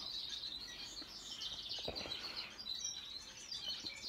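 Canary singing, a continuous, rapid, high twittering warble.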